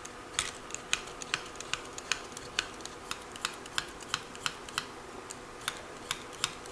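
Metal vegetable peeler stripping the skin off a russet potato in quick strokes, each stroke a short sharp click or scrape, about two to three a second.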